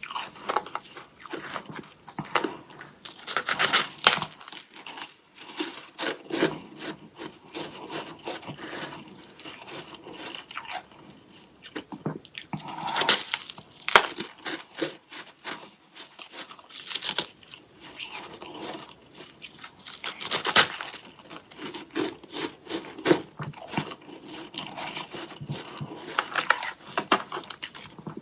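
Close-up biting and chewing of a chunk of freezer frost: dense crunching and crackling throughout, with a handful of louder bites spaced several seconds apart.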